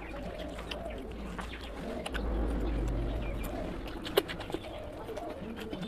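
Wet chewing and lip-smacking clicks from someone eating curry, scattered and irregular. A low wavering call runs in the background, and a low rumble swells about two seconds in.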